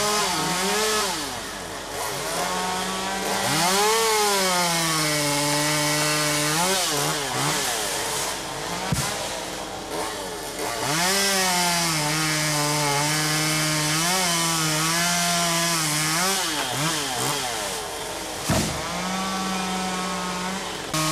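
Stihl MS200T two-stroke top-handle chainsaw cutting wood. The revs climb and sag over and over as the chain bites and frees, holding a steady loaded note for a few seconds at a time. There is a sharp click about nine seconds in.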